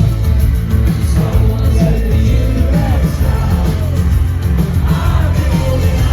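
Live rock band playing loud with a sung lead vocal over heavy bass and drums.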